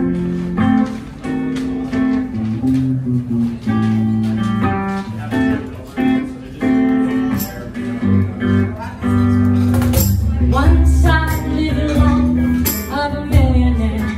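Live blues: an archtop electric guitar plays, backed by cajon and tambourine, and a woman starts singing about ten seconds in.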